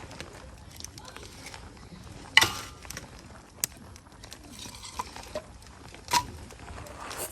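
A few sharp metallic clinks and knocks at irregular intervals over a low steady hiss. The loudest comes about two and a half seconds in and rings briefly.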